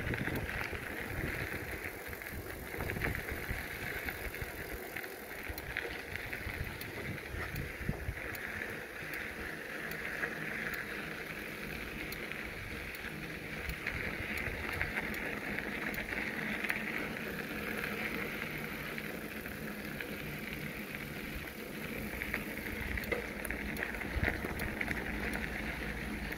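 A bicycle being ridden along a trail: steady rolling tyre noise, with wind rumbling unevenly on the microphone.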